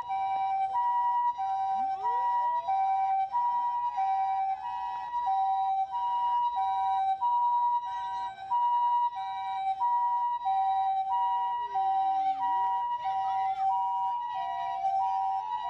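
A Japanese ambulance's two-tone hi-lo siren alternating steadily between a high and a lower note, about two notes a second. A fire engine's wailing siren also sounds: it rises about two seconds in, falls and rises again later, and starts falling near the end. Near the end a second two-tone siren overlaps out of step.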